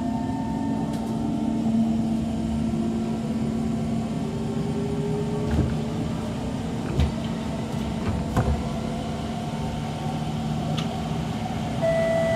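Kawasaki C151 metro train's traction motors whining over a steady running rumble, the whine climbing in pitch as the train pulls away and accelerates. A few short knocks come from the running gear partway through.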